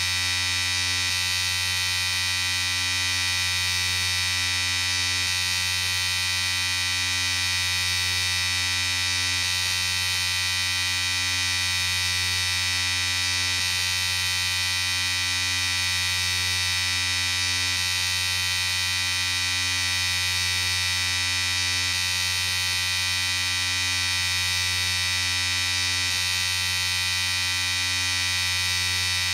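Electric shaver running with a steady, unbroken buzz.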